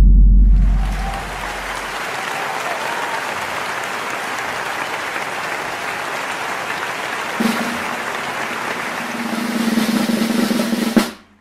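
A deep boom, then a long snare drum roll that swells near the end and stops abruptly on a final hit.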